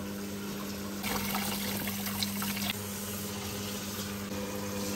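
Food processor running with a steady motor hum as it mixes hot choux dough to let it cool and steam off. From about one second in to nearly three seconds a louder, wetter churning and clicking rides over the hum.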